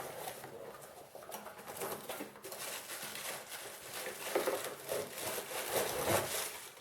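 Packaging rustling and being handled while a boxed microphone stand is opened, in irregular stretches that grow louder past the middle.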